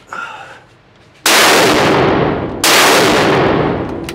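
Barrett M82A1 semi-automatic .50 BMG rifle fired twice, about a second and a half apart, each shot followed by a long echo dying away in an indoor shooting range.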